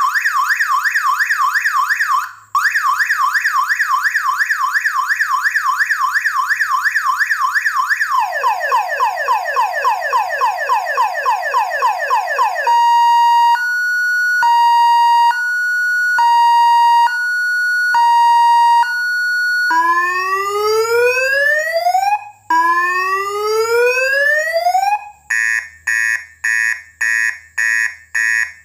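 Six-tone 12 V, 20 W electronic car alarm siren from a Beltech BT666 alarm kit, stepping through its tones. It starts as a fast warble that drops lower about eight seconds in, then alternates between two notes, hi-lo, then gives two long rising whoops, and near the end it beeps rapidly at about two pulses a second.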